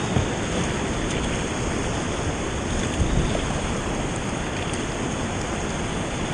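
Whitewater rapids rushing around a kayak: a steady, dense noise of churning river water, with a couple of short low thumps about a quarter-second and three seconds in.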